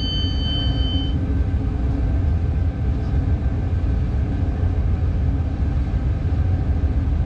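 Steady low rumble in the cab of a Bombardier TRAXX class 186 electric locomotive on the move: wheels on rail and running gear. A high electronic cab beep sounds at the start and stops about a second in.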